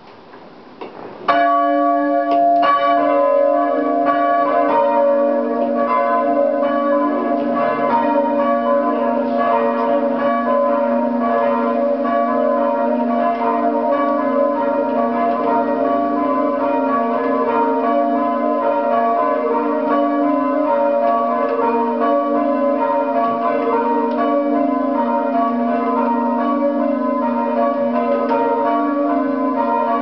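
Three church bells rung full circle on ropes, heard from the ringing chamber below: the treble and second cast by Henry Knight in 1622 and 1621, the tenor by Joseph Carter in 1601, about 8 cwt. The first strike comes about a second in, and then the bells strike one after another in a steady, unbroken rhythm of overlapping rings.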